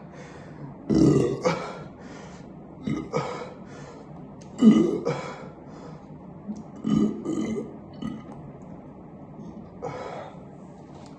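A person belching repeatedly from the gas of carbonated sparkling water: a string of separate short burps, the loudest about five seconds in and a fainter one near the end.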